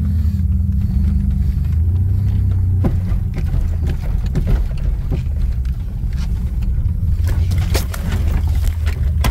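Off-road vehicle engine running steadily under a heavy low rumble, with scattered knocks and rattles from about three seconds in.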